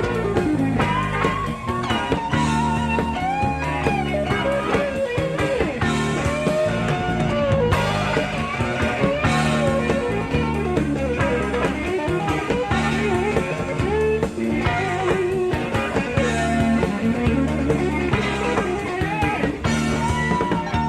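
Live rock band playing an instrumental passage from a cassette-tape recording: a lead electric guitar plays a melody with bent notes over bass and drums.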